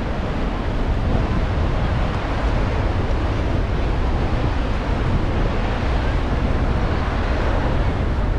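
Steady rush of Niagara Falls' falling water, with wind buffeting the microphone.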